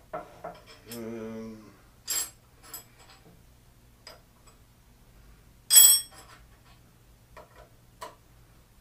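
Scattered light metallic clicks and taps of hand tools against the tool and cutter grinder's steel parts, with one louder ringing clink about six seconds in.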